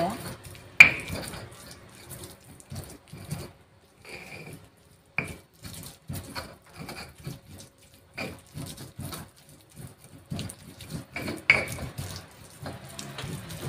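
Stone pestle grinding chilies and spices into a wet paste in a stone mortar (cobek and ulekan): irregular scraping and knocking strokes of stone on stone, with a few sharper knocks.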